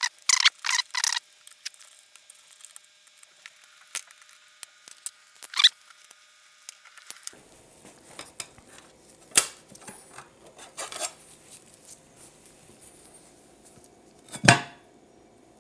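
Small clicks and taps of hard parts being handled as a Schmidt-Cassegrain telescope's corrector-plate retaining ring is unscrewed and eased off. A quick run of clicks comes at the start, then scattered light ticks, and a sharper knock near the end.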